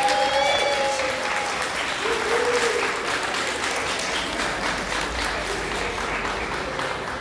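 Audience clapping steadily, with a long held cheering shout near the start and a shorter one about two seconds in.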